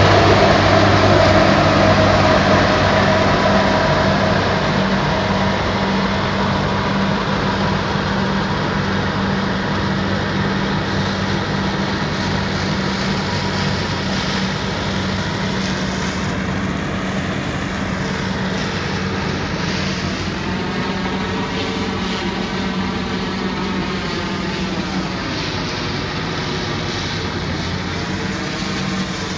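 Old Claas self-propelled combine harvester running at work cutting barley: a steady diesel engine and threshing drone that grows quieter over the first several seconds as the machine moves off, then holds steady.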